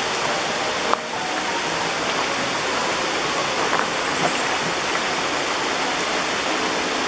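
Chittenango Falls waterfall rushing steadily: a dense, even noise with no letup, and one brief click about a second in.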